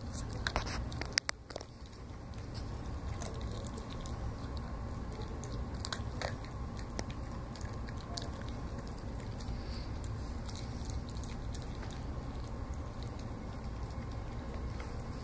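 Donovan Pinscher puppy chewing raw food, with scattered wet crunching clicks that are thickest in the first second or so, over a steady low hum.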